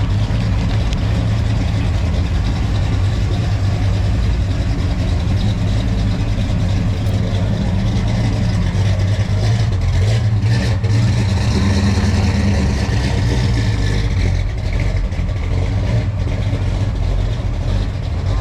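Engine of a muscle car or truck idling steadily, with a little more intensity about halfway through.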